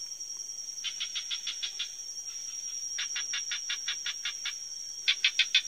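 An animal calling in three bursts of rapid, evenly spaced chirps, about seven a second, over a steady high-pitched hum.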